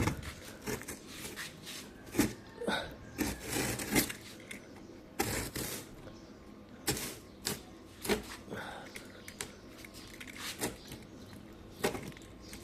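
Sealed cardboard package being handled and turned over: irregular knocks, taps and scrapes with short rustles.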